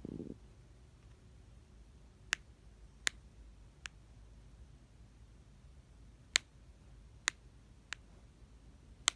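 Seven sharp, separate clicks at uneven intervals of about a second, over a faint low hum: button presses skipping back through video playback.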